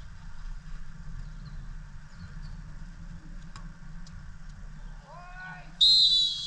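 A referee's whistle blown once in a short, loud, shrill blast near the end, just after a shout, signalling a goal ruled out for running. Low outdoor rumble underneath.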